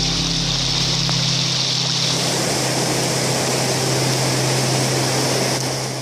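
Floodwater rushing: a steady, loud rush of moving water, with a low steady hum beneath it. The sound changes character about two seconds in.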